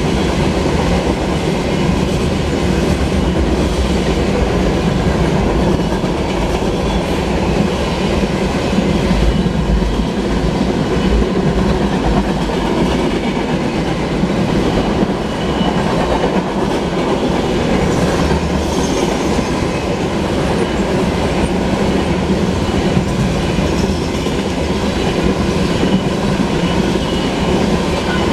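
Freight cars of a mixed manifest train (tank cars, boxcars, covered hoppers) rolling past close by. Steel wheels on the rails make a steady, loud rumble with a clickety-clack rhythm from the wheels passing over rail joints.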